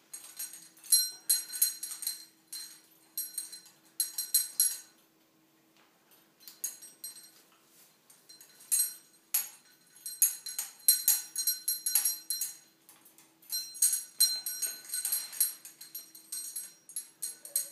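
Small metal bell on a hanging ring toy jingling in repeated bursts, with the metal rings clinking, as a parrot hangs and flaps on it.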